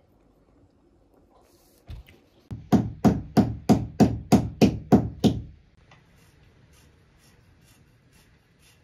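Hammer driving a nail into a wall: one light tap, then about nine quick, loud strikes, about three a second, that stop about five and a half seconds in.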